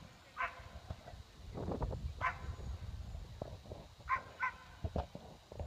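A dog barking in short, high-pitched barks, four times, with a longer gap between the second and third.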